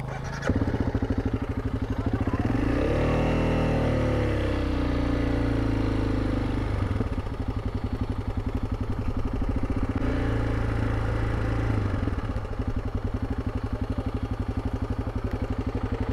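Honda CRF300 Rally's single-cylinder engine running under way. It picks up sharply about half a second in, revs up and falls back between about two and four seconds in, then runs steadily with another change near twelve seconds. The bike is being ridden on burnt clutch plates that keep it out of the higher gears.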